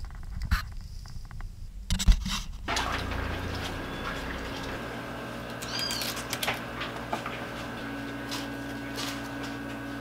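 Knife scraping and peeling cassava roots over a kitchen sink: scattered clicks and scrapes over a steady background hum. A loud knock comes about two seconds in, and a short chirp-like squeak near the middle.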